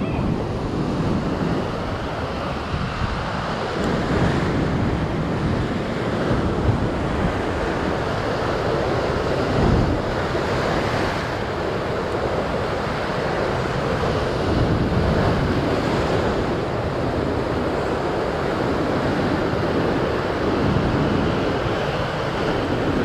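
Ocean surf breaking and washing over a lava rock shoreline in a continuous rush that swells and eases, with wind buffeting the microphone.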